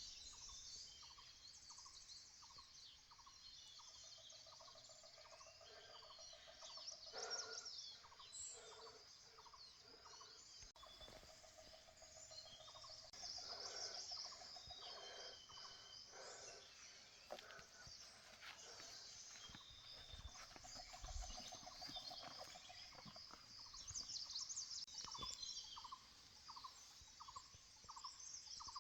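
Faint bird calls: high chirps, runs of short repeated notes and a low trill, coming in scattered bouts.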